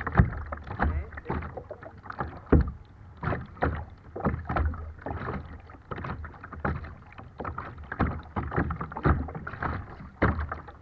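Choppy water slapping and splashing against a kayak's hull right beside the microphone, an irregular run of short splashes several times a second.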